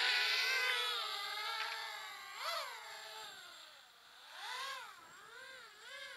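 SRD 260 Storm racing quadcopter flying around: the whine of its motors and propellers rises and falls in pitch with the throttle. It is loudest at the start, fades, then swells again briefly about two and a half, four and a half and six seconds in.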